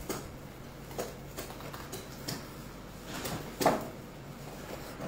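Marker pen writing on a clear plastic container lid: a string of short, irregular scratching and squeaking strokes, with a louder stroke about three and a half seconds in.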